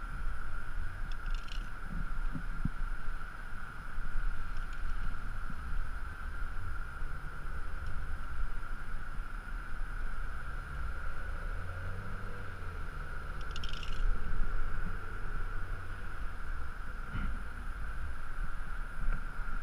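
Wind rumbling on a helmet camera's microphone high on a building face, under a steady high hum, with a few brief clicks about a second and a half in and again near fourteen seconds.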